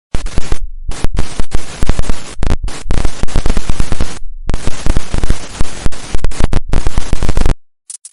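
Digital glitch sound effect: loud stuttering static and distorted noise, cut by abrupt dropouts and rapid clicks, stopping suddenly near the end.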